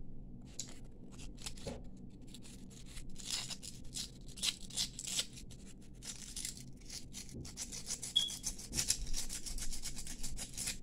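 Small hand file rubbed in short, irregular strokes along the edge of a brass bangle, smoothing its edges so nothing is sharp. The strokes come in quick runs, most of them in the second half.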